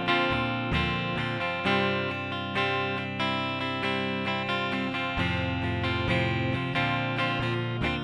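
Instrumental theme music led by a plucked and strummed guitar, with a new note or chord every fraction of a second.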